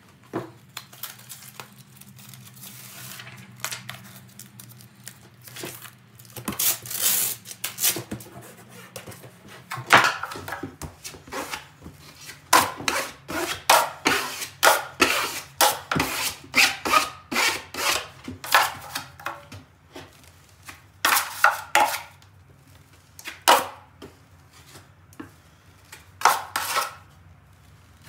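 Drywall taping knife scraping and rubbing across a mesh patch and joint compound on a drywall wall. It makes quick runs of short strokes with brief pauses between them.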